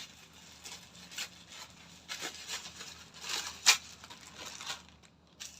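Parcel packaging being torn open and crumpled by hand, in irregular rustles with one sharp rip a little over three and a half seconds in.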